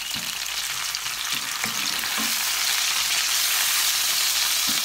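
Sliced onions sizzling in hot oil in a non-stick frying pan while a wooden spoon stirs them, with soft knocks of the spoon against the pan. The sizzle grows louder about halfway through.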